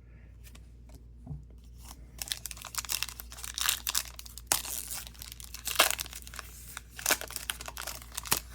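A Topps Disney Neon trading-card pack wrapper being torn open and crinkled by hand, with sharp crackles. It is faint for the first couple of seconds, then turns into steady crinkling.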